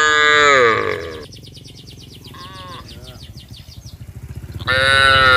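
Cows mooing: a loud call that falls in pitch at the start, a shorter, quieter one in the middle, and another loud call near the end. A bird chirps rapidly and repeatedly behind them.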